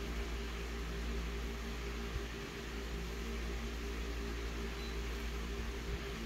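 Office multifunction copier idling with a steady fan and motor hum, a low electrical drone beneath it. A short, faint touch-panel beep sounds about five seconds in as a setting is pressed.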